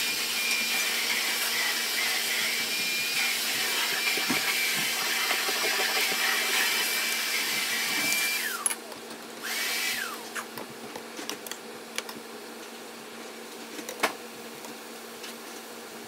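Broccoli stir-fry sizzling in a frying pan, with a steady high whine over it. A little past halfway the sound cuts off, comes back briefly and dies with a falling pitch; after that only a few light taps and scrapes of a metal spatula on the pan are heard.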